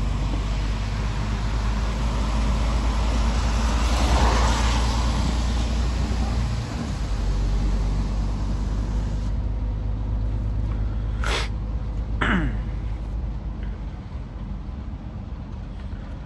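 Scania S500 truck running steadily on the road, a low engine hum under road and tyre noise. Two short sounds come about eleven and twelve seconds in, the second falling quickly in pitch.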